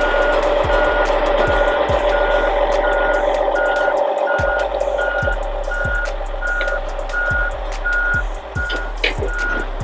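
Backup alarm on heavy diesel equipment beeping steadily, about one and a half beeps a second, over the steady sound of a running engine, with a hip-hop beat thumping underneath.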